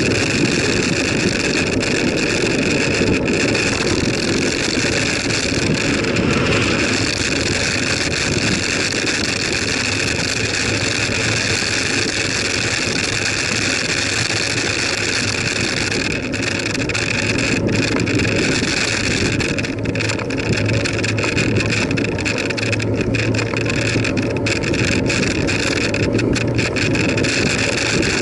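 Steady rush of wind over the microphone and tyre noise from a bicycle rolling along a tarmac road, with a low steady hum that strengthens in the second half.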